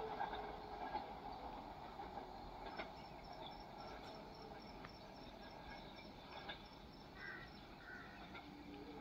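Faint rumble of a receding electric local train fading away down the track. Birds chirp near the end, and a fast, high-pitched ticking runs through the middle.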